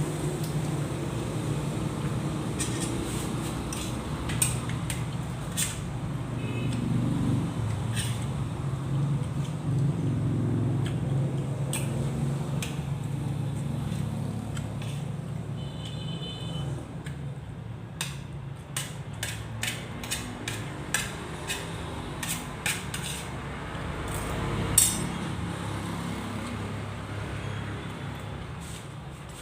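Eating sounds: a spoon and fork clicking and clinking against a plate, many sharp clicks at irregular intervals with one short ringing clink. A steady low hum runs underneath throughout.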